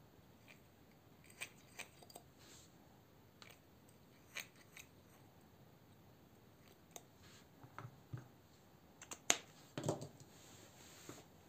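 Faint, scattered clicks and taps from hands handling a steel folding-knife blade and a needle-tip oil pen while the pivot is oiled, then a louder knock about nine to ten seconds in as the blade is laid down on a silicone mat.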